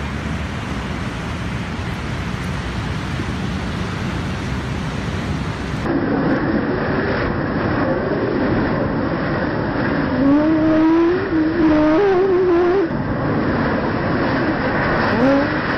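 A steady rushing noise for about six seconds, then a leaf blower running hard, blowing straight into a pug's face, with a wavering pitched sound over the blowing.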